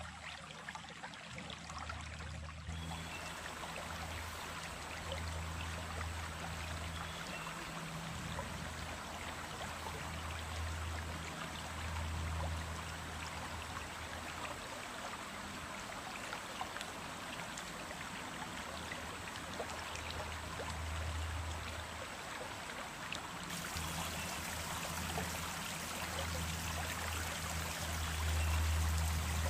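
Small stream of running water flowing steadily, with a low rumble that swells and fades every few seconds.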